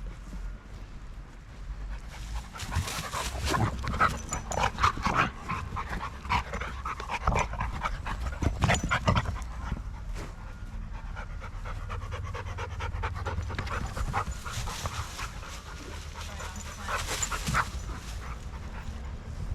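A dog panting hard in quick, rhythmic breaths, winded from running and wrestling play. It pants in two long bouts with a quieter pause in the middle.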